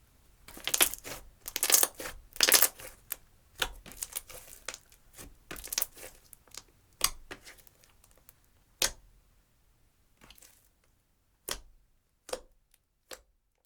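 Clear slime swirled with black and white eyeshadow, squished and pulled by hand, giving quick sticky pops and crackles. The pops come thick and fast at first, then thin out to a few separate pops near the end.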